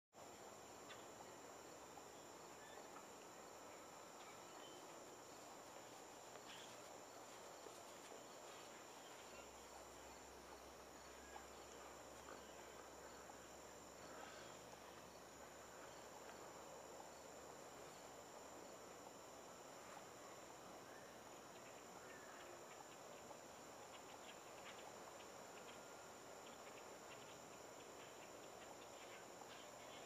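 Faint evening outdoor ambience: a steady high-pitched insect trill, typical of crickets, with scattered faint chirps from birds gathering at their roost tree, more of them toward the end.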